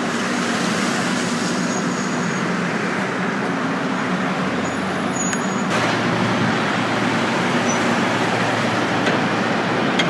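A car driving, with a steady, even mix of engine and road noise.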